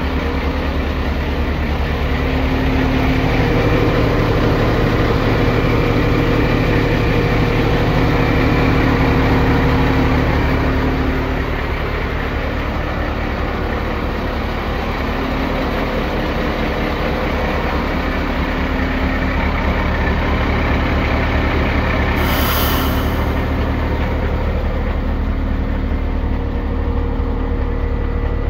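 Renault Premium 320 DCI truck's diesel engine idling steadily, a little louder for the first ten seconds or so. A brief hiss sounds about two-thirds of the way through.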